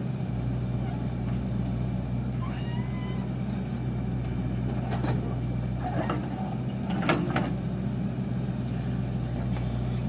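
Backhoe loader's diesel engine running steadily while the backhoe arm works, with a brief pitched sound about two and a half seconds in and short sharp sounds about five and seven seconds in.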